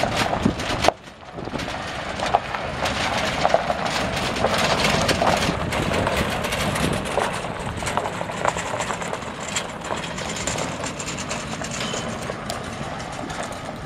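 2007 Ford F350 Super Duty pickup with a 5.4-litre V8 gas engine driving slowly across loose gravel, its tyres crunching on the stones over the engine's running sound.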